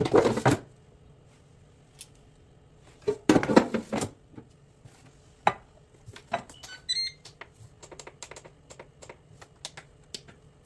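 Clatter of a metal air fryer basket being handled and pushed into a Ninja dual-basket air fryer, then light clicks of its control panel buttons with a quick run of short electronic beeps about seven seconds in as it is set.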